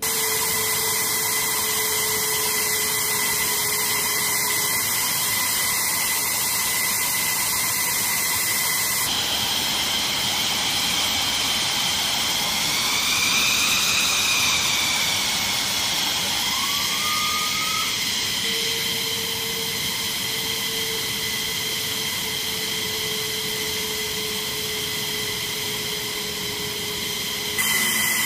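Jet engines of a parked F-15E Strike Eagle running on the flight line: a loud, steady, high-pitched turbine whine. Its tones briefly rise and fall in pitch about halfway through, and the sound changes abruptly twice, at about a third of the way in and near the end.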